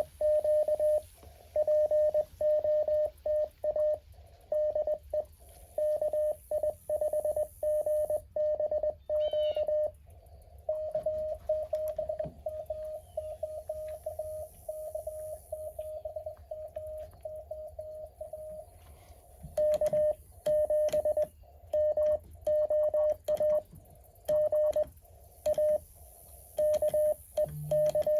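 Morse code from a Mountain Topper 4B QRP CW transceiver: a single mid-pitched tone keyed on and off in dots and dashes. It is loud for the first ten seconds or so, softer and more tightly run together from about eleven to eighteen seconds, then loud again to the end.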